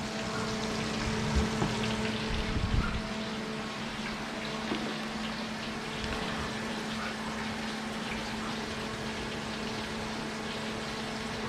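Fish fillets frying in hot grease: a steady sizzle with faint scattered crackles over a low steady hum. A few louder low rustles and knocks come in the first three seconds.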